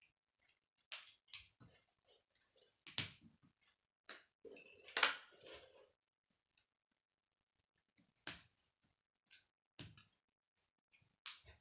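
K'nex plastic rods and connectors clicking and snapping together as they are fitted by hand, in irregular sharp clicks. A busier patch of clattering comes about four to six seconds in, then a few more clicks.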